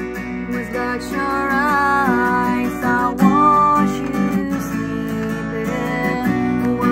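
Acoustic guitar strummed in steady chords, with a woman's solo singing voice joining about a second in.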